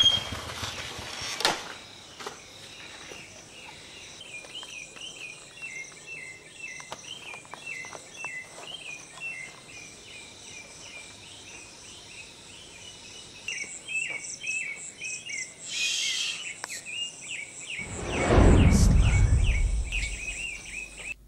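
Night insects chirping steadily, a continuous run of repeated high chirps. About three-quarters of the way through, a loud sound sweeps down in pitch and fades before the end.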